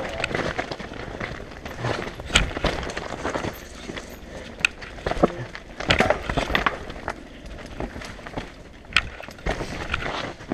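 Mountain bike riding fast down a rocky, rutted dirt trail: tyres crunching over gravel and stones, with frequent irregular sharp knocks and rattles as the bike hits rocks and bumps.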